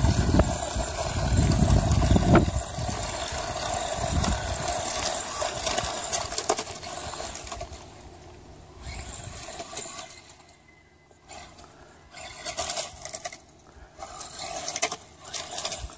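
Traxxas Rustler electric RC truck driving on gravel, its motor whining and tyres scattering stones. It is loud for the first half, then fades to quieter, on-and-off bursts as the truck drives farther away.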